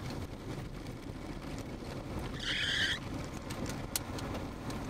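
Car driving on a gravel road, heard from inside the cabin: a steady low road rumble with scattered sharp ticks, and a brief hissing screech about halfway through.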